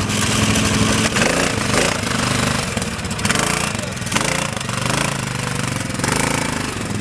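Utility ATV engine running under load as the quad climbs through and out of a dirt rut, with a fast, even pulse.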